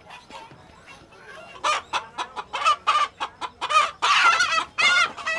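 Chickens squawking and clucking loudly in quick, repeated calls, starting about a second and a half in and crowding together near the end.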